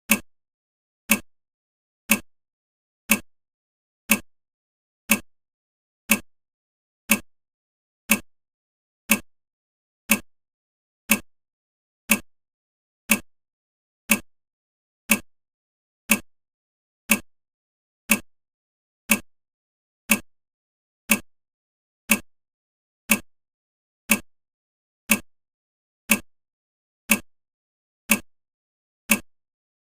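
Countdown timer's clock tick, one short tick every second, evenly spaced.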